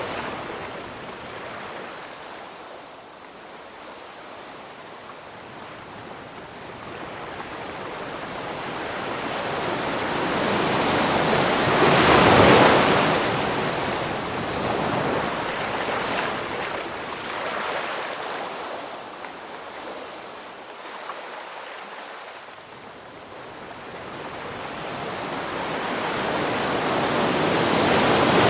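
Ocean waves breaking and washing in, a slow rushing surge that builds to a loud crest about halfway through, draws back, and builds again near the end.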